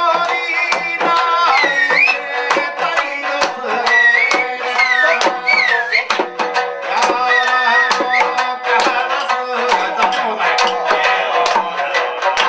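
Lively music: a high melody that slides and bends between notes over a quick percussive beat.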